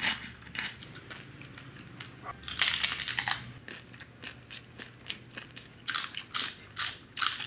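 People eating close to the microphone: chewing and smacking in irregular short clicks, some louder than others.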